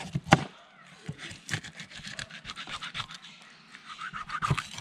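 Knife scraping and sawing through a large neduva fish as it is split in two along its thick backbone, with a sharp knock just after the start and irregular scratching after.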